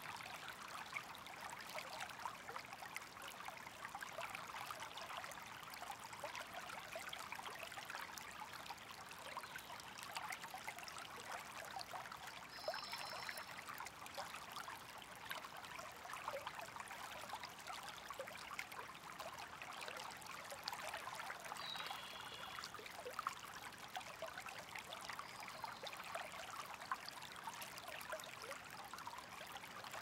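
Soft, steady trickle of running water, a fine crackle of small splashes and bubbles. Two brief faint high chirps sound over it, about a third and two-thirds of the way through.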